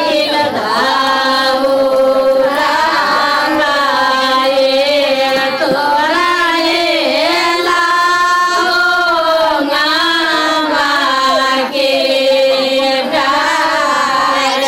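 A woman singing a wedding song into a handheld microphone, her voice loud and amplified, in a continuous run of sung phrases.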